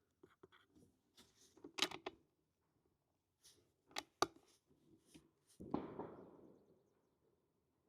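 Small clicks and knocks of handling at a shooting bench, including two sharp clicks a quarter second apart, followed about five and a half seconds in by a muffled bang that fades over about a second.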